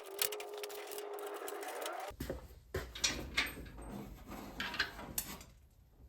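Power drill running with a steady whine for about two seconds, rising in pitch just before it stops, as it opens up a bolt hole. Then scattered clicks and taps of small parts and tools being handled.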